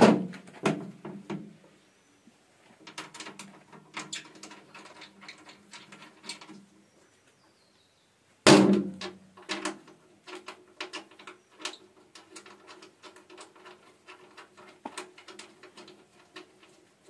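Sheet-metal body of an areca nut peeling machine being handled: two loud metallic bangs, one at the start and one about eight seconds in, each leaving a short low ringing, among many lighter clicks and rattles of the panel and its handles.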